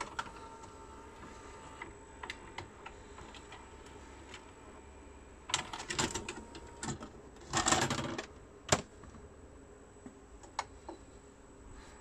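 VHS video recorder's tape mechanism clicking and whirring as playback is stopped and the cassette unloaded and ejected, with a faint whine in the first couple of seconds. A denser run of clicks and a louder clatter come about two-thirds of the way through, ending in one sharp click.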